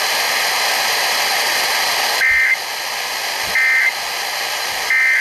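Steady radio static hiss, then three short warbling data bursts about 1.3 seconds apart: the Emergency Alert System end-of-message (EOM) SAME tones, signalling that the alert is over.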